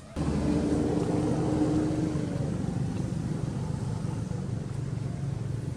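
A steady engine drone that comes in suddenly just after the start, with a held hum over roughly the first two seconds.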